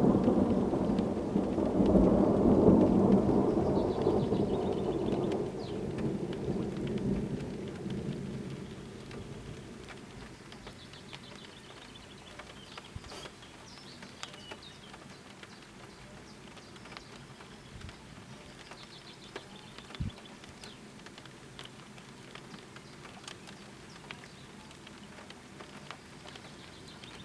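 A long roll of thunder, swelling about two seconds in and dying away over the next several seconds. Faint rain follows, with scattered drops and a single low thump about twenty seconds in.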